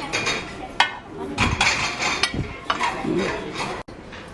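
Dishes and cutlery clinking, with sharp knocks of crockery and voices chattering in the background.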